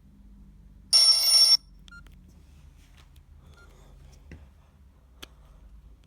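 Nokia 6120 classic mobile phone's loudspeaker playing a short, loud ringtone-style tone about a second in, lasting just over half a second. After it come faint button clicks and brief high beeps from the phone's keypad as keys are pressed.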